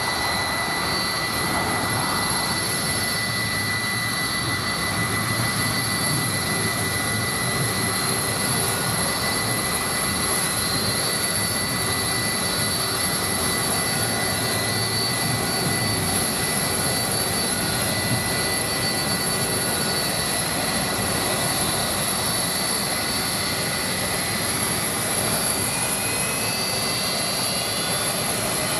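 Boeing 757's Rolls-Royce RB211-535 turbofan running steadily on a ground engine run: an even jet roar under several steady high-pitched whines. A faint tone rises in pitch near the end.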